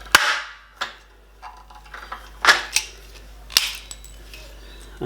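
Manual hand rivet gun setting aluminium pop rivets. The mandrels snap off with sharp cracks, three loud ones and a couple of lighter clicks spread over a few seconds.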